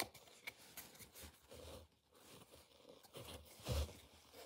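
Faint rustle and light clicks of trading cards sliding over one another as a stack is flipped through by hand, with one brief louder low sound near the end.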